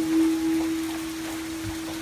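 Singing bowl ringing on after a strike, one steady low tone slowly fading, with a faint rain-like patter underneath.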